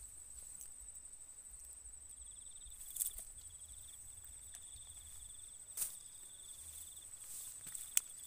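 Insects trilling steadily in the riverside vegetation: one continuous high-pitched trill, with a second, lower trill joining about two seconds in and stopping near the end. Three short clicks stand out.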